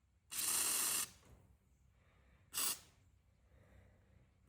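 Aerosol penetrating oil sprayed into a pocket knife's slip joints: a hissing spray of under a second, then a shorter one about two seconds later.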